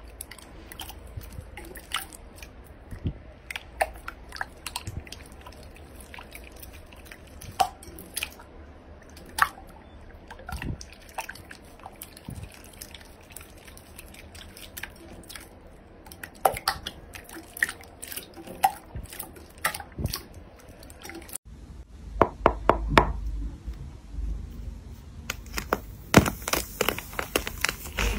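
Hands squishing and pressing wet, clear glitter slime, making irregular sticky pops, clicks and squelches. Later a hardened clay shell on a slime heart is cracked apart by thumbs, and a dense run of crackling snaps comes near the end.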